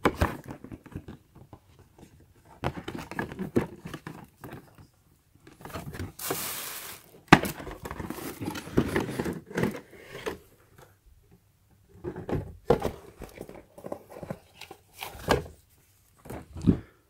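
Cardboard packaging of a headset box being handled: flaps opened and the inner cardboard tray lifted out, with scattered rustles, taps and knocks and a longer scraping rasp about six seconds in.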